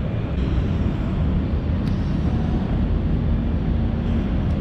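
Steady low rumble of city street noise, with wind on the microphone.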